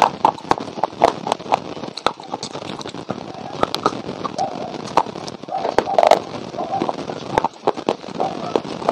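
Close-up mouth sounds of dry white clay being bitten and chewed: irregular sharp crunches and crackles.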